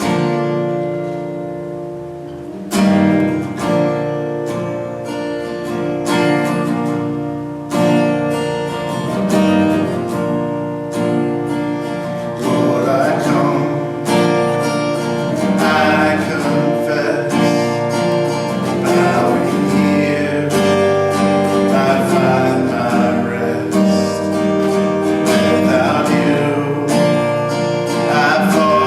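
Acoustic guitar music: a ringing chord at the start, then strummed chords picking up about three seconds in and carrying on steadily.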